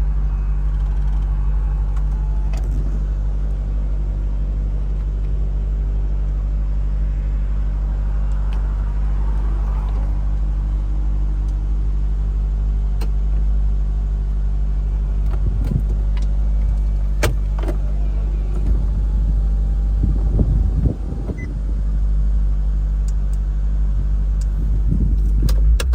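2015 Maserati GranTurismo convertible's V8 idling steadily while its power soft top is raised, the top's motor whirring with a few clicks and knocks over the engine.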